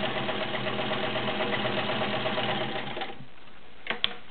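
A Kenmore 1757 all-metal sewing machine with a 1.2-amp motor, stitching steadily through three layers of upholstery leather. It stops about three seconds in, and two sharp clicks follow shortly after.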